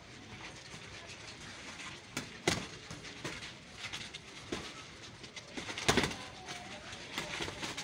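Boxing gloves smacking as punches land during sparring: a few scattered sharp hits, the loudest two about two and a half and six seconds in.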